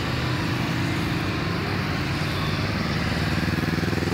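A column of motorcycles riding slowly past one after another, their engines running at low revs. A closer bike's engine pulses come through louder near the end.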